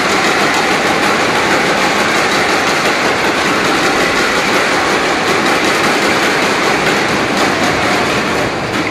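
Crowd in an indoor badminton hall cheering and shouting, a steady loud roar that drops away sharply at the end.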